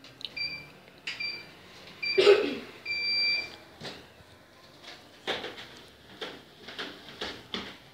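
Treadmill console beeping its start countdown: three short beeps about a second apart, then a longer beep, with one brief loud sound just after two seconds in. From about five seconds in, bare feet step on the slowly moving treadmill belt in a steady rhythm of two to three footfalls a second.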